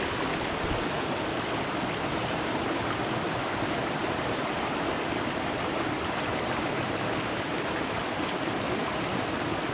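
Waterfall and stream water rushing steadily, an even, unbroken roar of falling water.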